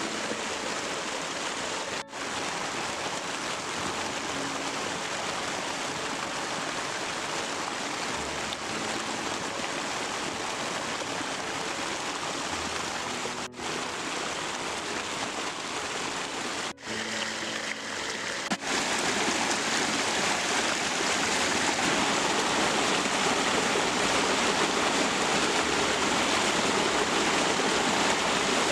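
Steady rushing of a forest stream's running water, broken by a few brief cuts and louder from about two-thirds of the way in.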